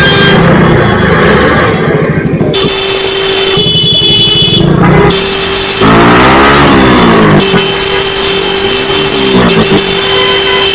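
Yamaha sport motorcycle's engine running in slow, dense road traffic, with a steady hum and a pitch that rises and then falls about six seconds in.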